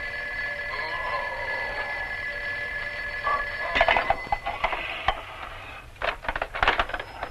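Telephone bell ringing steadily for about four seconds, followed by two bursts of loud clattering knocks.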